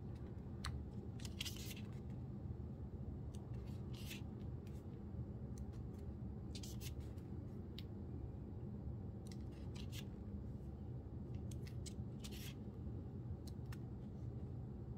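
Pages of a small paper booklet being turned by hand: a short crisp paper swish every couple of seconds, over a steady low hum.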